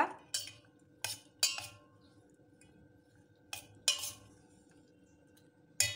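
A metal spoon clinks against a stainless steel bowl while stirring Indian gooseberry (amla) pieces in sugar syrup. There are about six irregular clinks, and the bowl rings faintly after several of them.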